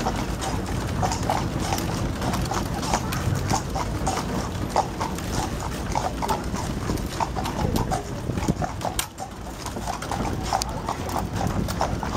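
A horse's hooves clip-clopping on a sealed road as it pulls a buggy, a steady run of hoof strikes over a low rumble, easing briefly near the end.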